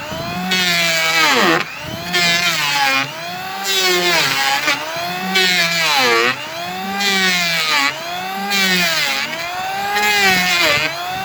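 Electric wood planer running and cutting, its motor pitch dipping and recovering in a regular cycle about every one and a half seconds, with a hiss of cutting in each cycle.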